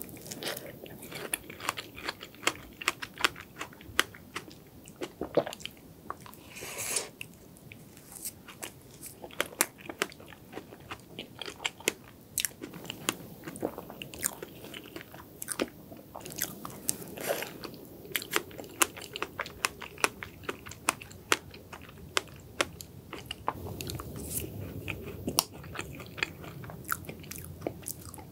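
Close-miked mouth sounds of eating strawberry cream cake (soft sponge, cream and fresh strawberries), with many short, sharp chewing clicks, several a second.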